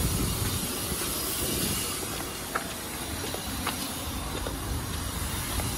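A steady hiss over a low rumble, with a few faint ticks from footsteps partway through.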